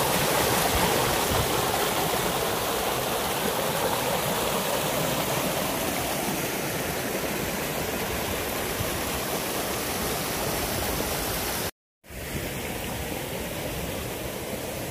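Steady rushing of flowing water, easing slightly, with a sudden brief cut-out about twelve seconds in before it resumes.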